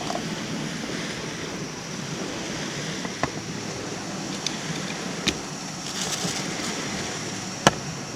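Steady wind and lake waves, with wind buffeting the microphone. A few small sharp clicks, the loudest near the end, sound like utensils or cups being handled.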